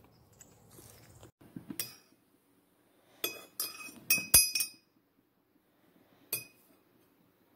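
A spoon stirring coffee in a ceramic mug, clinking against its sides: one clink about two seconds in, a quick run of clinks between about three and five seconds, and a single clink near the end.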